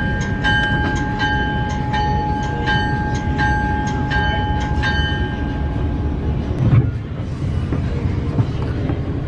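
Diesel locomotive's bell ringing, struck about three times a second over the low rumble of the idling engine, stopping about five seconds in; a single sharp clank follows near seven seconds.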